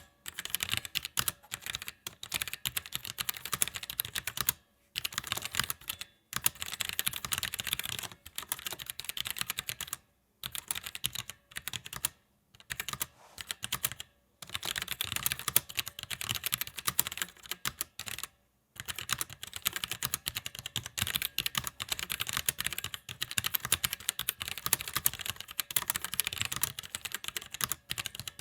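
Continuous typing on a Roccat Vulcan 122 AIMO mechanical keyboard with tactile Titan Brown switches and ABS keycaps: fast, dense keystroke clacks in runs, broken by a few brief pauses.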